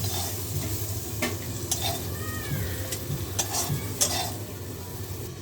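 Metal spatula scraping and knocking against a kadai while fried bitter gourd is lifted out of sizzling oil, with several sharp scrapes over a steady sizzle.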